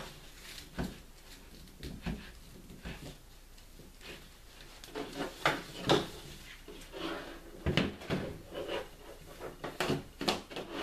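Handling sounds as a rifle sling is tightened and a wooden-stocked air rifle is moved about on a table: scattered knocks and clicks with soft strap rustling, and a few sharper knocks in the second half.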